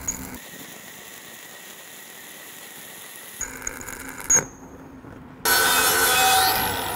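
Stick (SMAW) arc welding with a 3/32-inch 7018 electrode at 85 amps: a steady hiss from the arc. About five and a half seconds in, an angle grinder starts up suddenly, with a rising whine, against the weld bead. It is the loudest sound.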